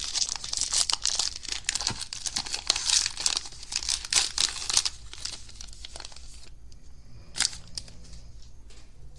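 Baseball card pack wrapper being torn open and crinkled in the hands: a rapid crackling for about six seconds, then quieter, with one short crinkle about seven seconds in.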